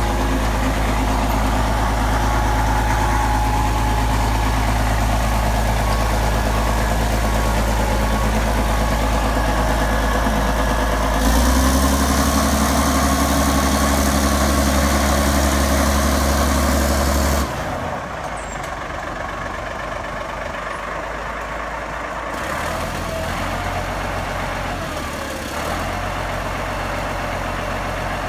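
Caterpillar 977L crawler loader's diesel engine running steadily, then revved higher about eleven seconds in and held for some six seconds before dropping back abruptly to a lower, quieter run as the loader moves and lifts its bucket.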